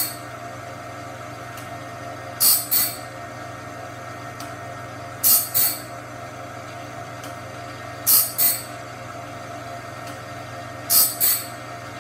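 Cat Claw band-blade sharpener running an automatic sharpening cycle on a sawmill band blade: a steady motor hum, broken about every three seconds by a pair of short, loud, hissing grinds as the wheel dresses the next tooth, four times in all.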